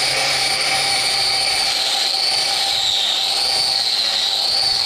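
Electric angle grinder fitted with a hoof-trimming disc, running at speed while cutting cattle hoof. It makes a steady high whine that wavers gently up and down in pitch.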